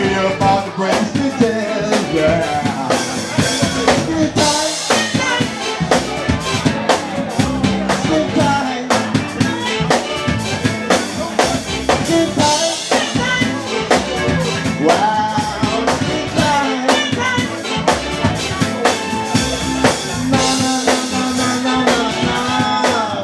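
A soul band playing: a drum kit keeps a steady beat with rimshots under singing and a full instrumental backing.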